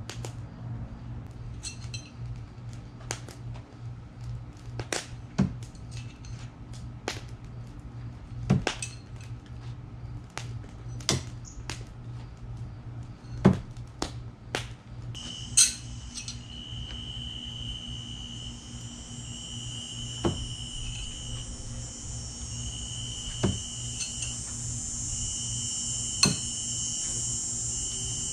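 Thrown knives striking a wooden log target: a series of sharp impacts every second or so, some in quick pairs, over a low steady hum. From about halfway, a high insect chorus comes in, a steady shrill buzz with a trill that starts and stops.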